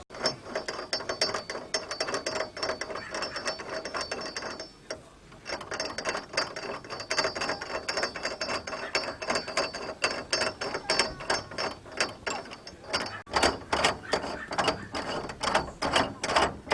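Rapid mechanical clicking and ratcheting, dense and continuous, with a short break about five seconds in and heavier strokes near the end.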